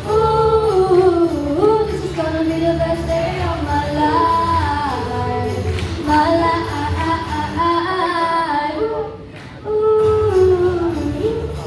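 A woman singing a slow song with long held notes, with a brief pause between phrases about nine seconds in.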